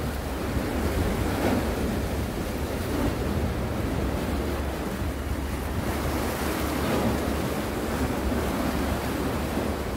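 Steady wind noise on the microphone over the wash of small sea waves against the shore rocks.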